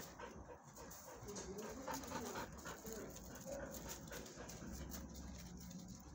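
A dog panting close by, with a few faint wavering whimpers about one to three seconds in.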